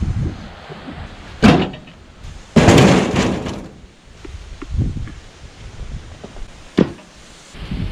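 Sawn firewood rounds being tossed and set onto a log splitter's steel loading rack: wood knocking on wood and metal. There are sharp knocks about a second and a half in and near the end, and a louder clattering thump lasting about a second near the three-second mark.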